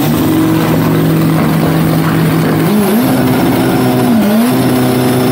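Drag-racing car engine held at high revs at a steady pitch. It steps up to a higher pitch about halfway through, with one brief dip and recovery near the end.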